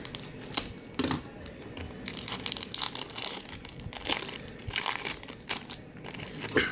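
Plastic trading-card pack wrapper crinkling and crackling in the hands as it is opened and handled, in irregular bursts.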